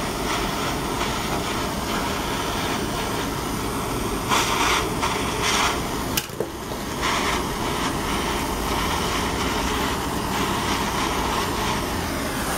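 Gas torch on a Bernzomatic MAP-Pro cylinder burning with a steady hiss as its flame heats a copper tube joint for silver brazing a service valve onto a refrigeration compressor. One sharp click about six seconds in.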